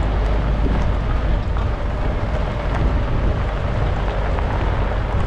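Steady low rumble of an off-road vehicle driving, with wind buffeting the microphone.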